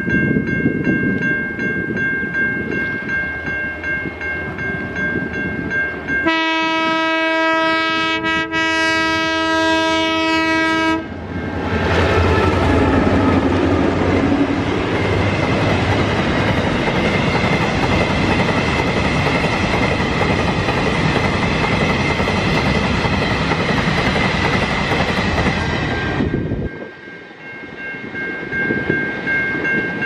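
Level-crossing bell ringing over the approaching rumble of a train, then a single long horn blast of about five seconds from the lead locomotive of Victorian B class diesels B74 and B76. The locomotives then pass close by with a loud heavy engine rumble, followed by a long rake of hopper wagons rolling over the rails with a clickety-clack, until the train clears about 26 seconds in and the crossing bell is heard again.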